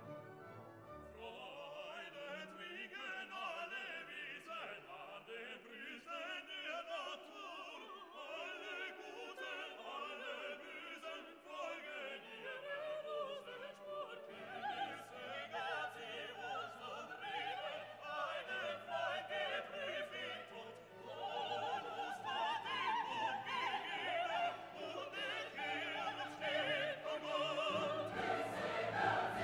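Background music: a classical piece with operatic singing over an orchestra.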